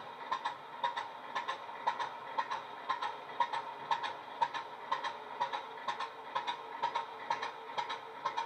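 Recorded Class 50 diesel engine sound (English Electric 16-cylinder) from a DCC sound decoder, played through a model locomotive's small speaker during its long cold-start sequence. It gives an uneven ticking beat of about three clicks a second, often in pairs, over a steady hum.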